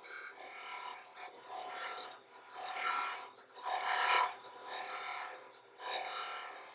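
Wood lathe turning a softwood spindle while a D-Way beading tool cuts a bead, a scraping, slightly ringing cutting noise that swells and fades about once a second as the tool is rolled side to side.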